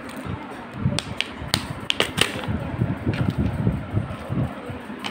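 Small plastic toy packets being handled and crinkled, with scattered sharp clicks and taps and low handling thumps.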